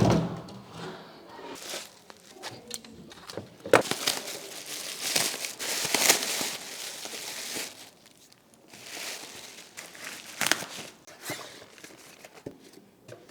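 Packaging being handled during unboxing: irregular crinkling and tearing, loudest a few seconds in, with a few sharp knocks.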